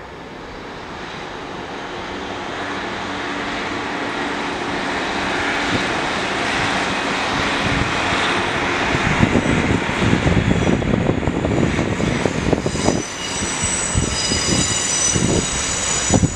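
Northern Class 156 and Class 150 diesel multiple units passing through the station. The diesel engines get steadily louder as the train approaches, then wheels knock over rail joints as the carriages go by. A high-pitched squeal joins in near the end.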